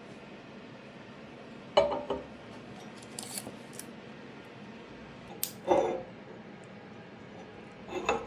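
Metal parts clinking and knocking as they are handled: a few separate knocks a couple of seconds apart, with a steady low hiss between them.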